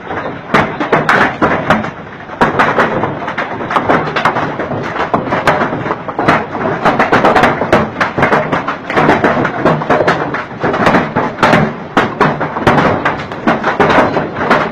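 Hailstorm with torrential rain: hailstones pelting down in a dense, continuous clatter of sharp cracks and taps over the steady rush of rain.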